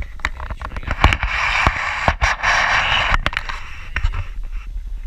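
Handling noise on a GoPro camera: scattered knocks and clicks with rustling, and two longer hissing rustles, one about a second in and one from about two and a half seconds to three and a half.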